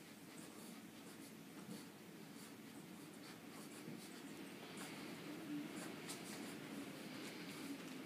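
Faint scratching and rustling with scattered small clicks, from Tatra sheepdog puppies about three weeks old shuffling about on their bedding.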